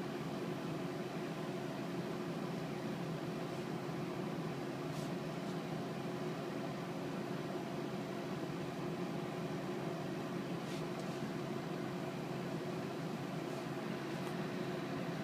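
Steady room noise: a low hum with a constant hiss, with a few faint clicks.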